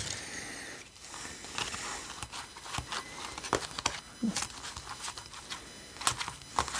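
Small stack of glossy printed cards being slid apart and flipped through by hand: light slides and flicks of card against card. A soft rustle of the kraft paper sleeve in the first second.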